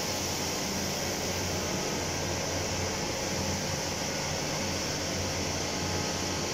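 Stainless steel tube mill running in a workshop: a steady machine drone with a low hum under a continuous high hiss, even throughout, with no knocks or strikes.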